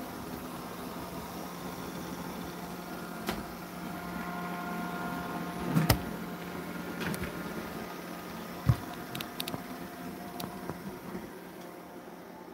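A steady machine hum with a few level tones, broken by several short knocks and clicks; the loudest knocks come about six seconds and nine seconds in.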